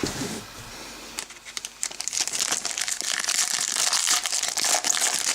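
Plastic or foil wrapper of a trading-card pack crinkling and tearing as it is handled and opened, a dense continuous crackle that builds up about a second in, after a single knock at the very start.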